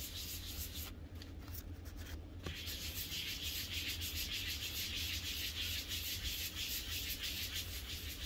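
Fine-grit (320) foam sanding block rubbed in quick circular strokes over the yellowed plastic cover of a solar light, working out the sanding scratches. A fast, even scraping rhythm that eases off briefly about a second in.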